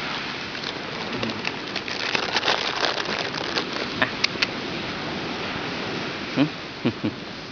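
Steady rushing hiss, like wind on a phone microphone, with crackling rustles and sharp clicks in the middle and a few soft low thuds near the end: handling noise from the phone held close against a dog lying on sand.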